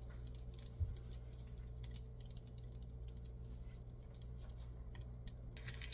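Butter sizzling softly in a small nonstick skillet, a scatter of faint irregular crackles as it foams and cooks off, over a steady low hum.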